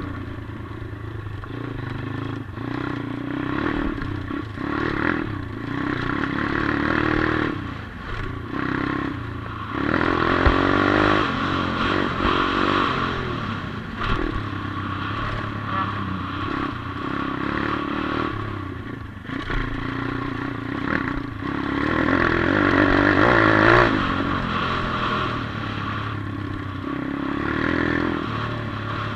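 140cc pit bike's single-cylinder engine being ridden on a dirt track, its pitch rising and falling as the rider opens and closes the throttle. It is louder in two surges, about a third of the way in and again past three-quarters.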